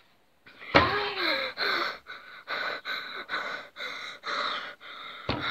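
A person's loud sudden gasp, voiced with a pitch that rises and falls, followed by rapid heavy panting, about two to three breaths a second.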